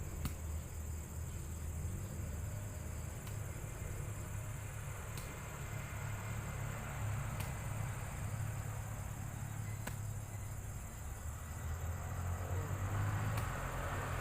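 Steady, high-pitched insect chirring over a steady low rumble.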